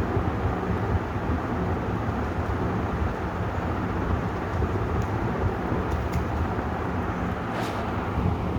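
56-inch Vision ceiling fan running steadily, a low even rush of air from the blades with a faint motor hum beneath it.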